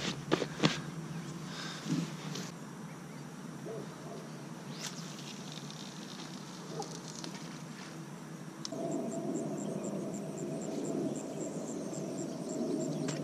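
Crickets chirping in a fast, even pulse, clearest from about two-thirds in, over steady outdoor background noise that grows louder at the same point. There are a few soft clicks near the start.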